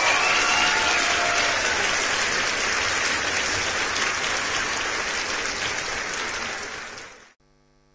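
Audience applauding steadily, with a few high voices calling out in the first second. The applause fades and cuts off near the end.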